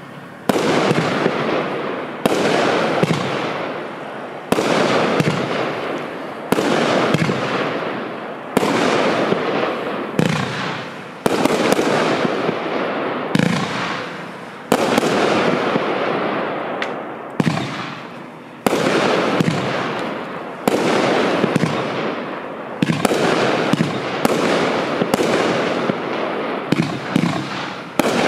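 A 29-shot, 500-gram consumer firework cake firing shot after shot. Each shot is a sudden bang about every one to two seconds, followed by a fading noisy tail that runs into the next.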